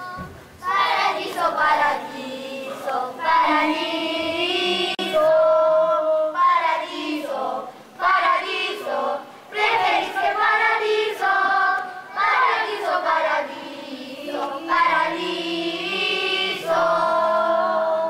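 Children's choir singing in long phrases with held notes, with brief pauses for breath between them.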